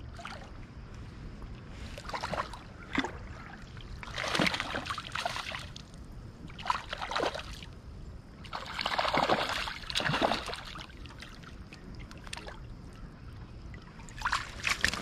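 Water splashing and sloshing in irregular bursts, loudest about four and nine seconds in, from a hooked trout being played in at the surface.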